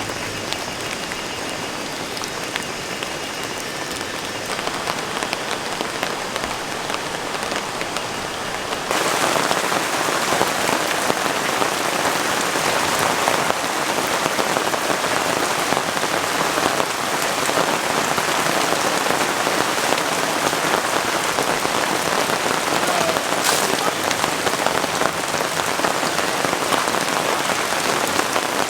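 Steady rain falling, growing louder about nine seconds in.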